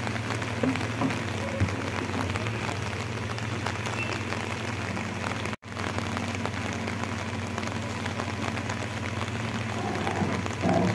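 Rain pattering steadily, with the low, steady hum of a JCB 3DX backhoe loader's diesel engine running underneath. The sound cuts out for an instant a little past halfway.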